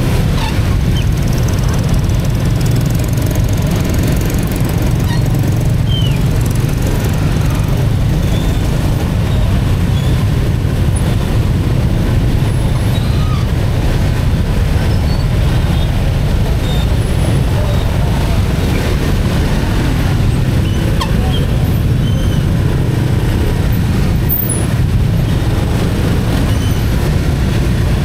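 Steady low rumble of jammed city traffic, motorcycle and car engines running close by at slow speed.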